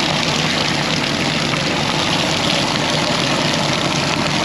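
An engine idling steadily, with an even rushing noise over it.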